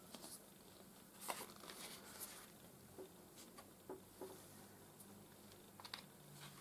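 Faint rustles and a few light taps as bundles of embroidery floss are handled and laid down on a tabletop.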